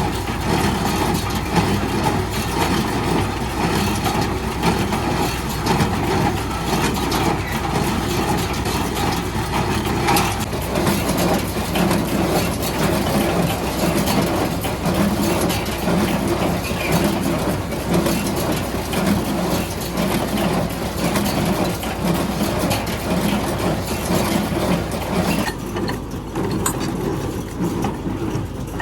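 Tractor engine running steadily while it drives a Welger AP51 round baler at work. About three seconds before the end the sound turns duller.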